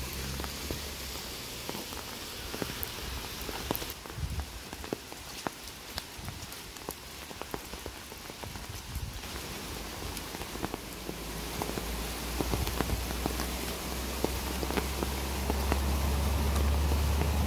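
Rain falling on a wet road and foliage, with many scattered drip ticks. A low rumble builds and grows louder over the second half.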